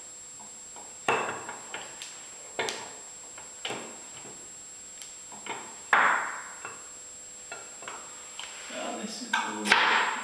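Metal clinks, knocks and scrapes as a painted metal cover plate is handled and fitted against a lathe headstock: single sharp knocks about a second apart, the loudest about six seconds in, then a busier patch of knocking and scraping near the end.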